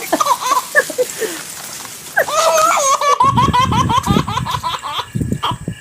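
High-pitched laughing and squealing vocal sounds, with an abrupt switch a little past three seconds to a different stretch of laughter.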